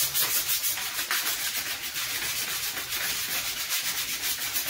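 Hand scrubbing on the greasy metal of a 1955 Chevy's front axle and chassis, working in engine degreaser gel with fast, even back-and-forth strokes, several a second.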